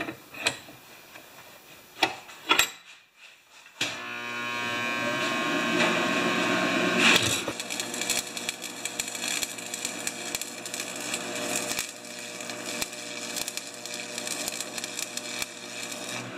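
Electric arc welding: after a few sharp metal taps, the arc strikes about four seconds in and crackles and sizzles steadily, with a buzzing hum under it.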